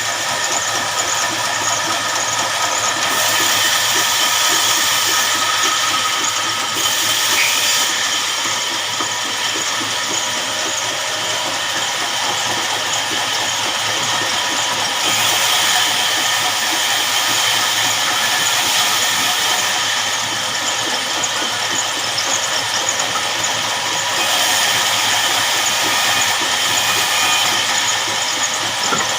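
Band sawmill running and cutting through a log: a steady machine hiss and whine that brightens and grows a little louder for a few seconds at a time, three times over.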